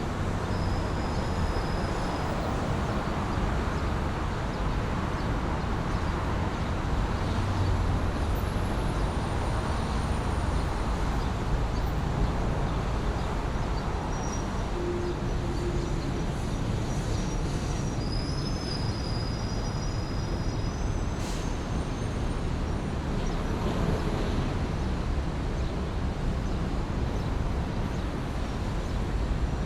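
Busy downtown street ambience: a steady rumble of traffic. A few faint high squeals sound briefly about two-thirds of the way through.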